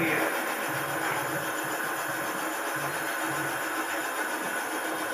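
A machine running steadily, with a low throb pulsing roughly twice a second.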